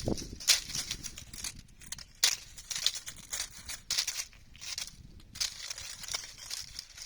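Dry autumn leaves rustling and crackling in irregular bursts.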